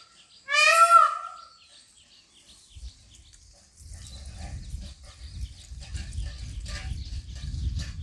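A loud, high, wavering animal cry from about half a second to just past one second in. After a quiet stretch, a low rumble with a faint hiss sets in at about four seconds.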